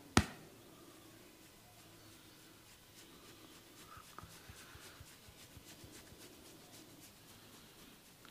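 Hands massaging and scratching a man's hair and scalp: faint rubbing with quick ticks a few times a second through the middle, after one sharp click about a quarter second in.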